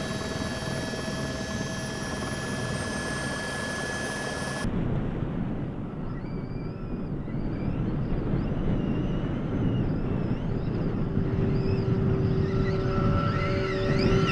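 Audi RS Q e-tron electric-drive rally car running over sand dunes. Steady held tones give way, after an abrupt change about four seconds in, to a rushing noise with a high whine that wavers up and down, and steady tones return near the end.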